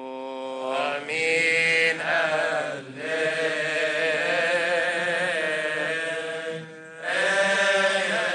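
Coptic Orthodox liturgical chant: male chanting of a slow melismatic melody with long drawn-out notes, broken by two short pauses for breath, about three seconds in and near the end.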